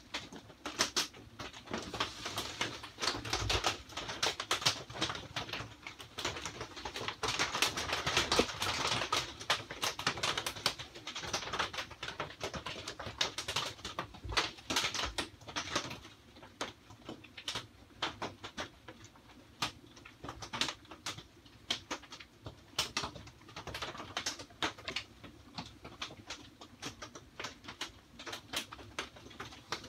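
Rain drops pattering and tapping on the greenhouse's plastic roof and walls, a dense irregular patter that is heavier through the first half and thins out in the second half.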